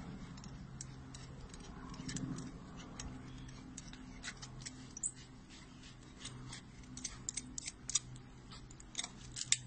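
Metal carabiners and harness hardware clinking and clicking as bungee harness straps and ropes are clipped on and adjusted: scattered sharp clicks, in quick clusters at times, over a low steady hum.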